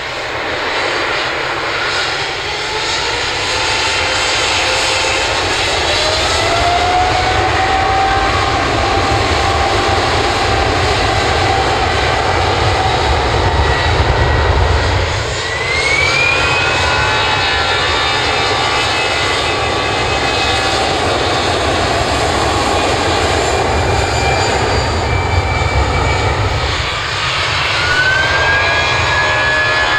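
Boeing 777 jet airliner on its takeoff roll: the engines spool up with a rising whine that levels off over loud, steady jet noise and a deep rumble, and a second whine rises about halfway through. Near the end a different jet, an Airbus A320-family airliner, spools up for takeoff with its own rising whine.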